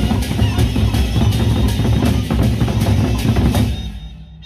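Gendang beleq ensemble, the large Sasak drums beaten fast and loud, with a steady beat of sharp strokes over a heavy low drum sound. It fades out near the end.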